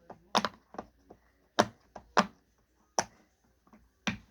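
Silicone pop-it fidget toy having its bubbles pressed one after another: a string of sharp pops, about eight, irregularly spaced and varying in loudness.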